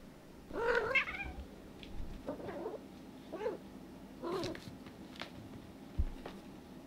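Domestic cat meowing about four times in short calls, the first the longest and loudest, with a soft thump near the end.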